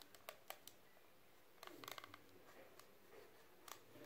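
Faint scattered clicks and scrapes of a cotton pad wiping a handheld plastic wax heater, with a short flurry of them about a second and a half in; otherwise near silence.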